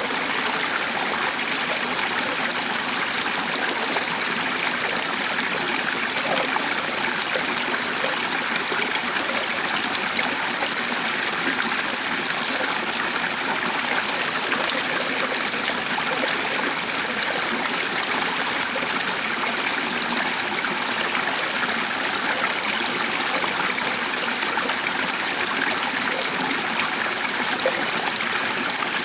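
A stream running steadily, a continuous even rush of flowing water.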